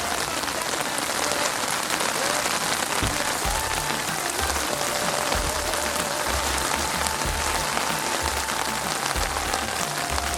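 Heavy rain falling on a street, a steady, dense hiss that does not let up, with faint music underneath.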